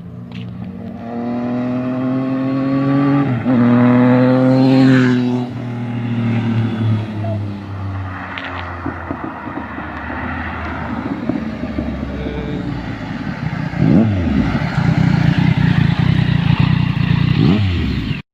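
Yamaha MT-09's inline-three engine revving through its exhaust: the pitch climbs and drops twice in the first five seconds, then it runs harder and rougher with a few quick rev sweeps. It cuts off abruptly near the end.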